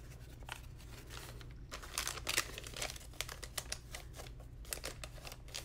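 Paper and plastic gift packaging crinkling and rustling in the hands as a ribbon-tied paper gift bag is handled and opened: irregular crackles, busiest about two seconds in.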